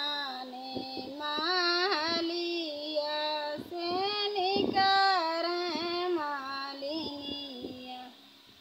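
A woman singing a North Indian folk wedding song (vivah geet) unaccompanied, in long held notes with ornamented turns, breaking off for a pause near the end.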